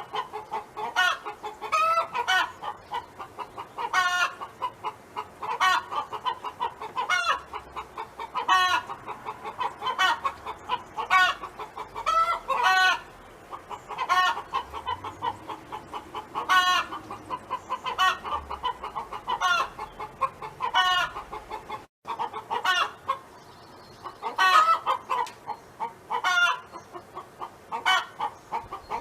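Domestic hen clucking in a long, steady run of short pitched calls, about one a second.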